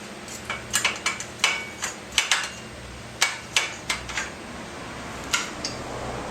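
About a dozen sharp metallic taps and clinks at irregular intervals, some ringing briefly, as a trike's aluminium seat rail bracket is worked onto the frame tubing; most come in the first four seconds, with one more a second or so later.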